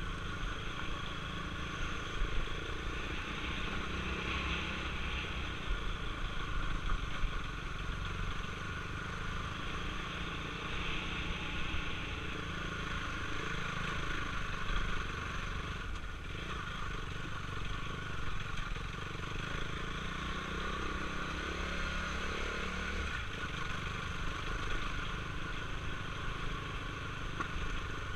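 KTM Duke 390's single-cylinder engine running steadily at low speed up a rough dirt track, with a few short jolts over the bumps.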